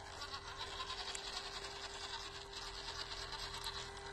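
Small electric motor and gearbox of a 1/16-scale WPL RC crawler whining steadily as it drives, one constant tone with a fast high-pitched buzz over it.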